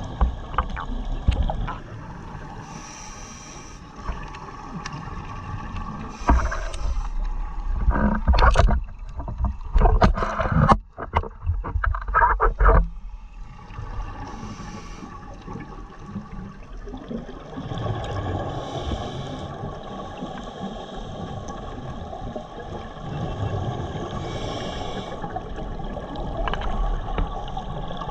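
Underwater ambience picked up through a diver's camera housing: the rush and gurgle of a scuba regulator's breaths and exhaled bubbles, coming back every few seconds. About 8 to 13 seconds in, a run of loud knocks and clicks from the housing being handled or bumped.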